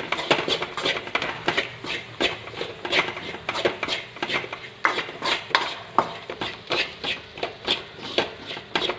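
A metal spoon stirring a thick onion and spice-powder masala in a pan, clinking and scraping against the pan in many irregular knocks, a few a second.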